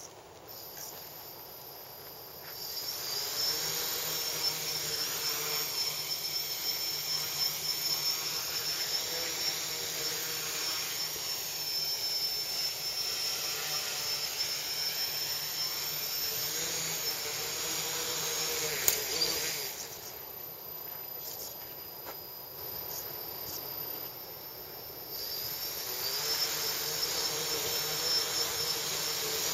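Tricopter's electric motors and propellers spinning up about two and a half seconds in, then a steady, high buzzing whine as it flies. A sharp click comes about two-thirds of the way through, then the whine drops to a lower level for about six seconds before rising again near the end.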